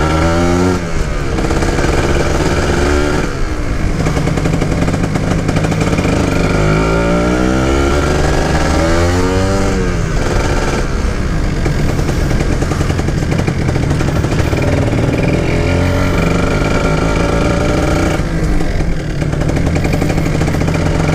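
Kawasaki Ninja 150 SE's two-stroke single-cylinder engine running under way, its revs climbing and dropping back several times through the gears, over steady wind and road noise.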